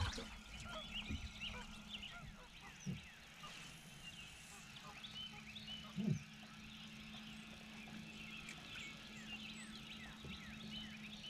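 Faint background birdsong: many short chirps from small birds, over a steady low hum, with a few soft knocks, the clearest about six seconds in.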